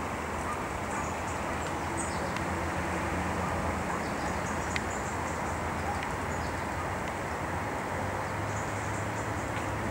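Steady outdoor background noise with a low hum under it, and faint, short bird chirps scattered throughout.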